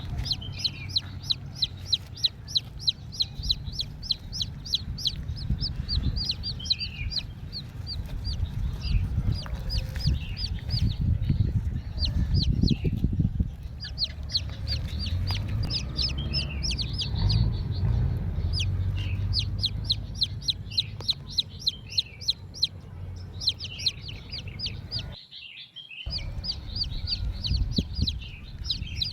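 Birds chirping rapidly and continuously, several short calls a second, with some longer calls mixed in, over a low rumble. The sound drops out for about a second near the end.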